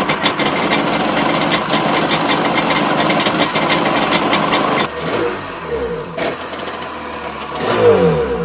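A 1996 Sea-Doo Sportster's two-stroke engine running, first as a loud, fast rapid-fire clatter. About five seconds in it drops to a quieter running note that rises and falls as it is revved, with a few sharp pops.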